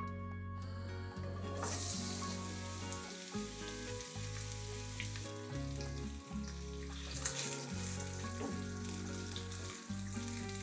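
Sliced onions sizzling in hot oil in a nonstick frying pan, the sizzle rising about a second and a half in, with a silicone spatula stirring them through the oil later on.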